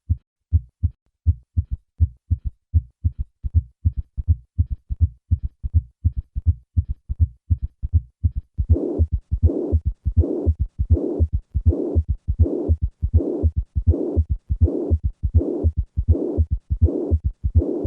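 Heart sounds of mitral regurgitation: low first and second heart sounds with extra third and fourth heart sounds, a gallop rhythm repeating a little over once a second. About halfway through, a pansystolic murmur is added that fills each systole right up to the second heart sound. With chordal rupture, this combination can signal a large regurgitant volume or left ventricular dysfunction.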